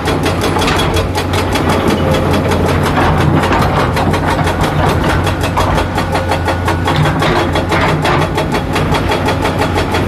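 Komatsu PC200-7 excavator's six-cylinder diesel engine running steadily at an even speed, with a rapid, regular pulse and a constant low hum.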